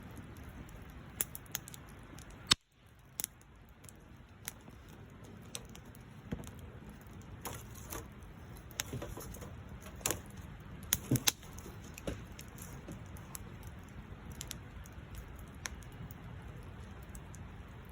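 Campfire burning, with irregular sharp crackles and pops over a low steady hiss; the loudest pop comes about two and a half seconds in, just before the sound cuts out for a moment.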